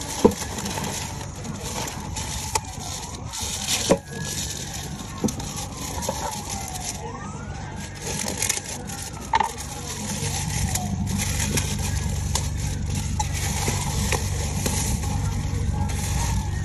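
A siren wailing, its pitch rising and falling slowly over and over, with a few sharp knocks of handling. A low rumble comes in about ten seconds in.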